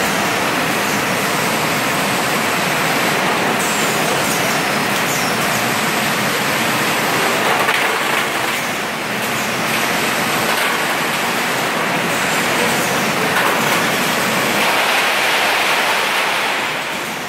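Steady, loud hiss and hum of bottle production machinery running, with no clear rhythm.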